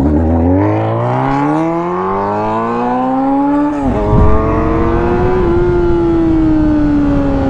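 Sport motorcycle's engine revving hard as it pulls away, climbing in pitch for about four seconds, dropping suddenly at an upshift, then running on at speed with its pitch slowly falling. Wind rushes over the helmet-mounted microphone once the bike is moving fast.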